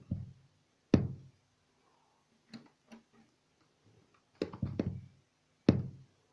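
A handful of sharp knocks and clicks from hands working cables at the back of a desktop PC tower, with quiet gaps between; the loudest come about a second in and near the end.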